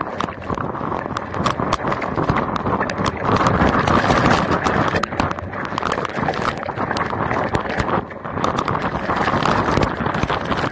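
Wind-driven heavy rain pelting the camera and vehicle, a dense rushing noise full of many irregular sharp taps of drops striking.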